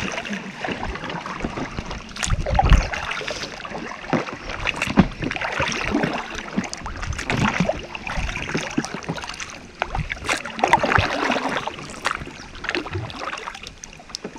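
Paddles dipping and splashing in an irregular run of strokes as an inflatable kayak is paddled out into a fast river current, with water rushing past and a dull knock about two and a half seconds in.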